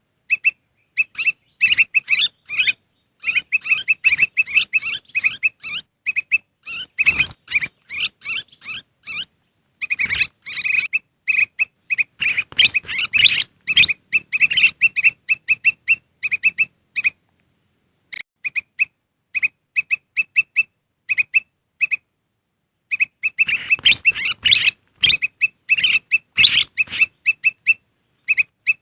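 Kutilang emas (a bulbul) calls played as a bird lure: quick short chirps repeated several times a second, breaking into busier chattering flurries three times, with a brief pause past the middle.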